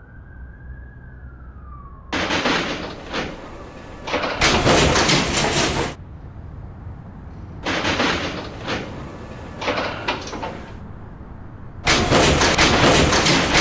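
Subway train running on the rails: a low rumble, broken three times by loud stretches of wheel-and-rail noise with rapid clacking. Each stretch starts and stops abruptly.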